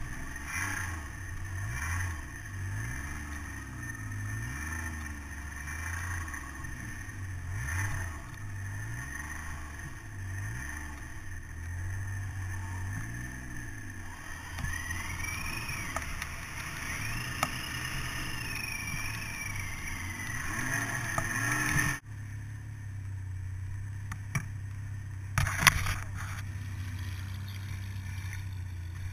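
Snowmobile engine running, its pitch repeatedly rising and falling as the throttle is worked through deep powder, with a high whine that rises and falls for several seconds past the middle. About three-quarters of the way in it changes abruptly to a steadier engine drone, with a couple of sharp knocks.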